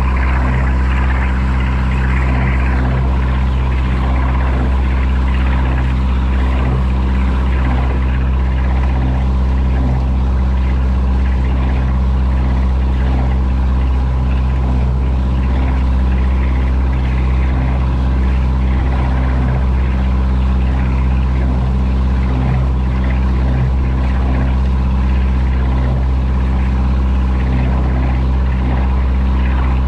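Motorboat engine running steadily at cruising speed, a constant low drone, with the wake churning and splashing behind the boat.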